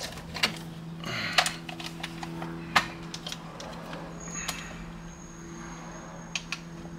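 Scattered light clicks and taps from handling an airsoft gas blowback pistol and its magazine, the loudest a little before the middle, over a steady low hum; a faint high whine comes in past the middle.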